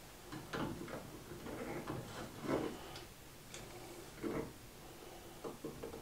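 Faint, irregular clicks and short knocks of metal pen-kit parts and a pen press being worked while a bolt-action pen is pressed together.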